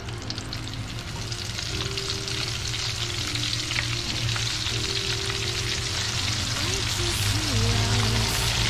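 Battered squid rings for calamares frying in hot oil in a wok, a dense crackling sizzle that grows louder as more pieces are dropped in.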